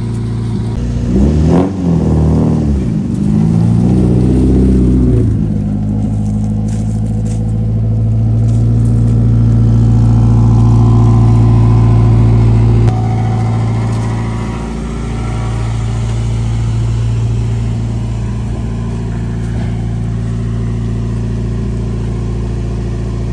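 Car engine revved a few times, its pitch rising and falling, then settling to a steady idle for the rest of the time.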